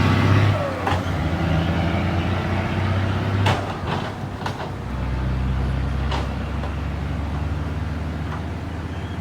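Turbocharged diesel engine of a ten-wheel dump truck with a 4-inch S-shaped exhaust pipe running, its note shifting a few times, with a few short sharp sounds near the middle.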